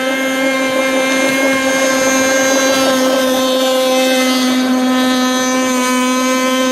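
Nitro engine of an AquaCraft radio-controlled model boat running at speed, a steady buzzing whine that holds one pitch.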